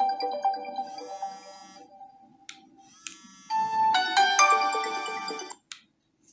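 Huawei T3 8 tablet ringtones playing through its speaker: one chiming melody fades out about two and a half seconds in, then a second melody starts about a second later and cuts off suddenly near the end.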